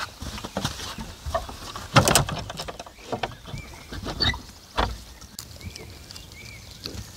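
Scuffing footsteps and light knocks on wood, with one louder crackly scrape about two seconds in, and a few short, faint high chirps.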